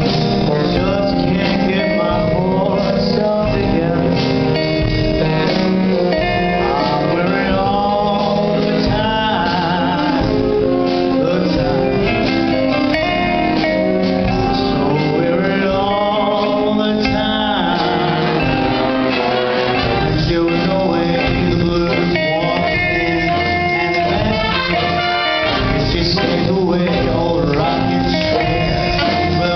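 Music: a song with a singer over a jazz-style band, brass instruments among the accompaniment.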